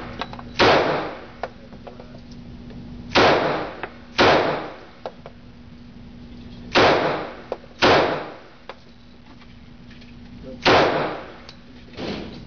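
HK USP .45 Compact pistol firing .45 ACP at an indoor range: seven shots, mostly in pairs about a second apart, each with a short echoing tail off the range walls.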